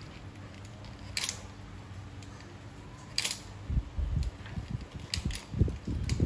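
Handling noise from a metal workpiece support stand being set up and adjusted. A few sharp metallic clicks come first, then from about halfway an irregular run of low thumps and knocks, over a steady low hum.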